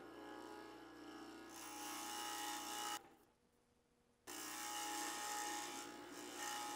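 Scroll saw running, its blade cutting a small piece of thin wood as the piece is turned along a marked line. The sound cuts out abruptly about three seconds in and comes back a little over a second later.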